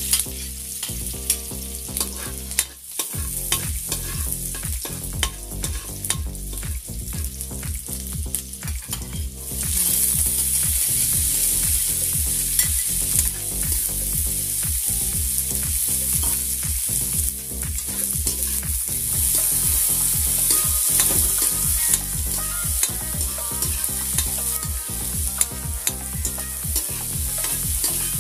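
Garlic sizzling in hot oil in a steel wok while a metal ladle scrapes and taps against the pan. About a third of the way in, the sizzle grows louder as chopped onions and tomatoes go into the wok, and the frying and stirring carry on steadily.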